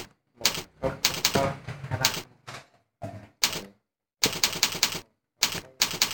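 Computer keyboard keys struck one by one in irregular clusters as a string of digits is typed, with a quick run of about five keystrokes a little past four seconds in.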